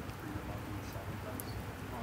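Open-air ambience: a steady low rumble with faint, quiet speech and a few short, high chirps.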